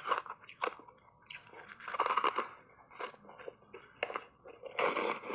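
Ice coated in matcha green tea powder being bitten and chewed: a few sharp cracks at first, then irregular crunching, loudest near the end.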